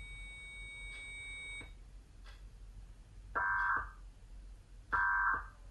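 Two short bursts of Emergency Alert System end-of-message data tones, the warbling digital screech that closes an EAS test, about a second and a half apart and starting about three seconds in. The tones are played pitched down.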